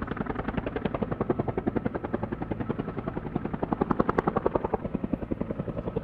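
Helicopter rotor chopping steadily, about eight even beats a second.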